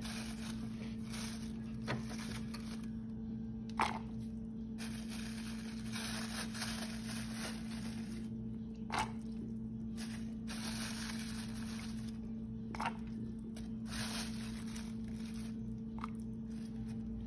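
Pressure cooker cooking hominy under pressure, hissing steadily with a low hum, with a few faint clicks.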